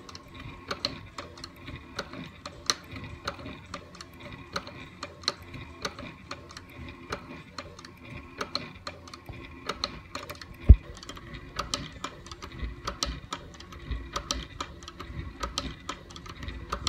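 Leather-stitching sewing machine running slowly, its needle ticking through the thick leather of a collar about two to three stitches a second over a steady motor hum. One louder thump comes partway through.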